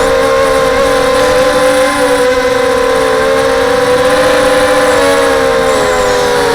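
SunnySky 2204 2300KV brushless motors spinning 5x3 propellers on an FPV multirotor in flight: a steady, loud whine of several close pitches that waver slightly as the throttle shifts.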